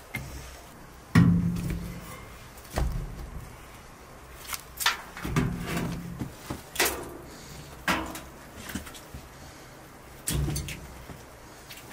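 Split firewood knocking against the sheet-metal firebox of a wood-burning stove as pieces are set in by hand. About seven separate clunks, each ringing briefly in the metal.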